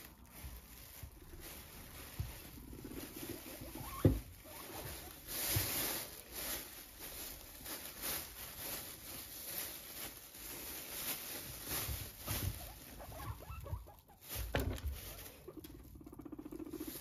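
Thin plastic bag crinkling and rustling as hands handle it, with a sharp knock about four seconds in.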